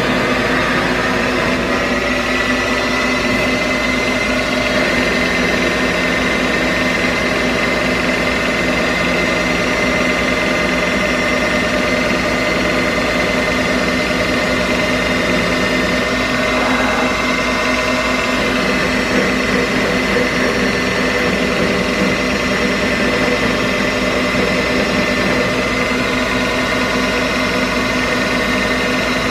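Milltronics Partner T-17 CNC lathe with a whine that rises in pitch over the first two seconds as the spindle speeds up, then runs steadily at a high whine. The tool is turning down a steel bar.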